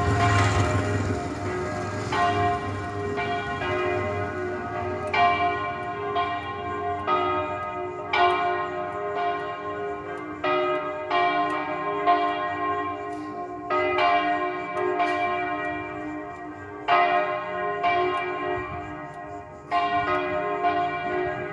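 Church bells of São João del-Rei pealing, several bells of different pitch struck in an uneven rhythm, a new stroke every second or two with each ringing on into the next. The peal announces the Meeting (Encontro) of Mary with her Son.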